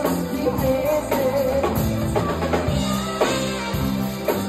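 Live band playing, with drum kit hits on a regular beat about every half second under electric guitar and sustained pitched notes.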